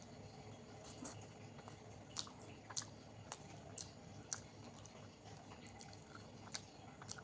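Close-miked, faint wet chewing and mouth smacks from a person eating soft food such as daal and rice, with a handful of sharp clicks scattered through.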